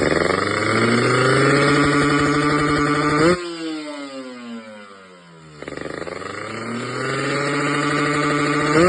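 Carburetted motorcycle engine being revved: the revs climb and are held high for about three seconds, the throttle snaps shut and the revs fall away over about two seconds, then a second rev-up climbs and holds the same way.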